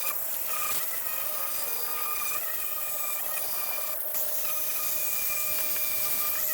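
Cordless Ryobi 18V EZClean pressure washer running, its pump motor giving a steady whine over the hiss of the water spray. The spray hiss thins briefly twice, just after the start and about four seconds in.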